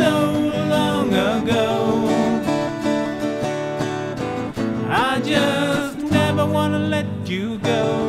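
Folk song instrumental break: acoustic guitar playing, with a melody line that slides in pitch over it.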